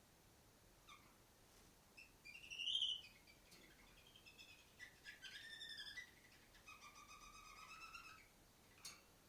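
Female domestic canary chirping: a few short chirps, one louder call about a third of the way in, then two longer phrases of quick repeated notes and a last chirp near the end, faint and at a distance.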